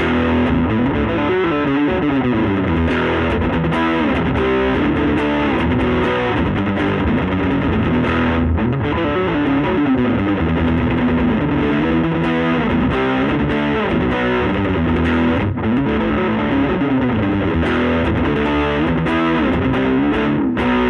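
Electric guitar with P90 pickups played through the overdriven gain channel of a Laney Lionheart L5 Studio tube amp and a 15-inch Jensen Alnico speaker: a continuous distorted riff of chords and single notes.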